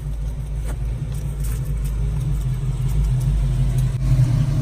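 Car engine running low and steady as the car creeps at walking pace and rolls to a stop, heard through the dash cam inside the car; the low rumble grows a little louder toward the end.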